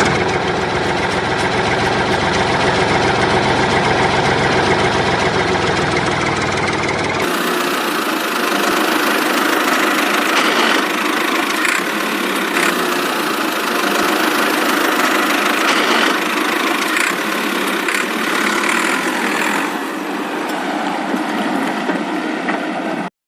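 Small DC motor running steadily with a whirring mechanical drone. About seven seconds in the low hum drops away and the sound turns higher and busier, with faint ticking. It cuts off abruptly near the end.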